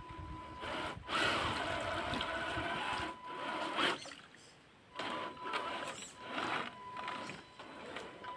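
A 6x6 RC crawler truck (YIKONG Land Rover Defender D110 pickup) drops off a rock and drives into a shallow stream, its wheels splashing and churning the water. The splashing comes in bursts, loudest from about one to four seconds in, then shorter splashes through the rest, with a faint steady whine underneath.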